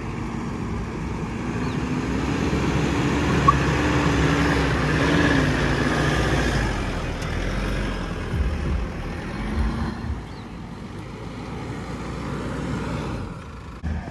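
Toyota Fortuner's diesel engine working under load as the SUV climbs a sandy dune track in four-wheel drive. It is loudest in the first half and rises and falls after.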